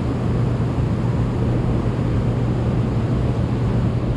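Steady rushing noise of water discharged below Center Hill Dam with all three hydroelectric generators running, under a constant low hum.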